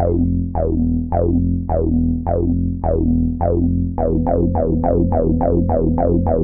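Electronic synthesizer music: short plucked notes that each sweep downward, about two a second, speeding to about three or four a second around four seconds in, over a steady low bass.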